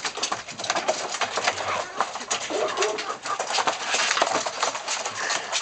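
Chickens feeding on released winged hoppers: soft, low calls from the hens over a dense run of sharp clicks and rustling.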